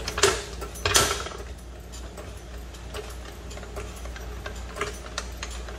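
Pittsburgh hydraulic floor jack being pumped by its handle, raising the engine through a block of wood under the oil pan. It gives two sharp knocks about a second apart near the start, then a run of lighter clicks with the strokes.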